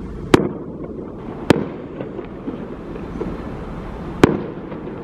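Aerial fireworks bursting: three sharp bangs, the first about a third of a second in, the next at about a second and a half, the last a little after four seconds, over a steady hiss of background noise.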